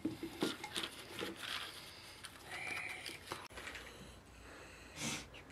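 Whole potatoes being dropped by hand into an aluminium pressure-cooker pot, knocking against each other and the metal in a few short thuds and scrapes, mostly in the first second and a half.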